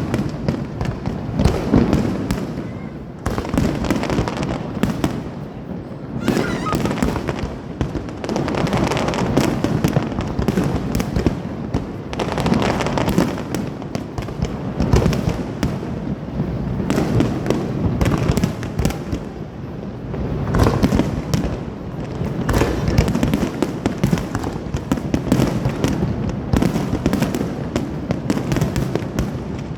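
Fireworks display: a dense, continuous run of bangs and crackling as shells burst overhead, with brief lulls about 3, 6 and 20 seconds in.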